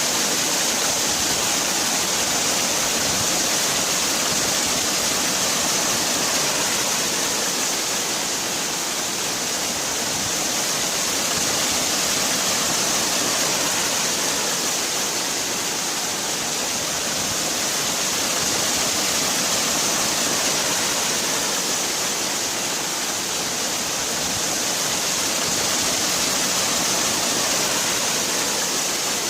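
Waterfall: a steady rush of falling water, a constant hiss with slow, gentle swells in level.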